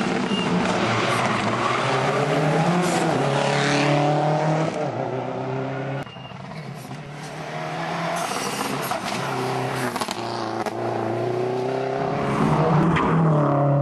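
Rally car engine revving hard through the gears, its pitch climbing and falling again with each shift. The sound drops away abruptly about six seconds in, then builds again as a car comes close.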